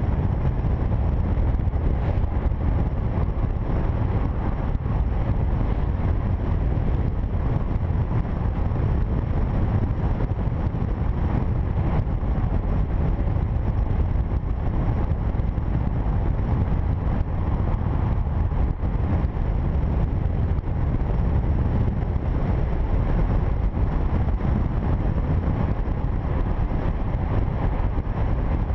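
2008 Jeep Wrangler JK's 3.8-litre V6 running through a Flowmaster 40 Series exhaust, a steady low drone while cruising at an even speed, with road and wind noise.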